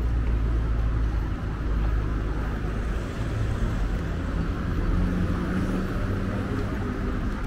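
Steady outdoor city street ambience with a heavy low rumble and no clear single event.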